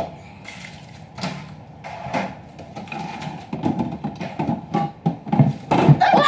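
Scattered knocks and clatters of things being handled in a kitchen, coming faster and louder near the end.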